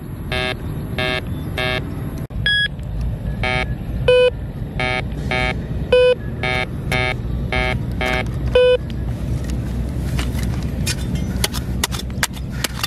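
Metal detector beeping over buried metal in the hole: short repeated beeps in a lower tone, with a louder, higher beep every couple of seconds, stopping about nine seconds in. Near the end, a hand trowel digging into stony soil, with scraping and small clicks.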